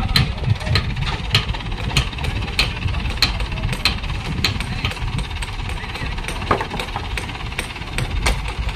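Crane engine running low under sharp knocks that repeat steadily, about three every two seconds.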